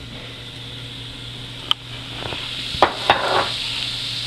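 Diced celery sizzling in melted butter in a nonstick skillet, the hiss growing louder in the second half. Three sharp clinks against the pan come near the middle.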